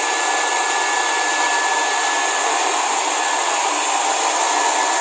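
Hair dryer running steadily, a constant blowing noise with a thin high whine in it, drying a freshly bathed puppy.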